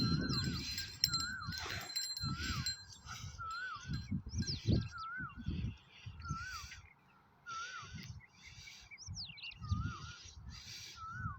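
A bird repeating a short wavy whistled call about once a second, with other birds chirping. Irregular low rumbles and thumps sound throughout and are loudest early on.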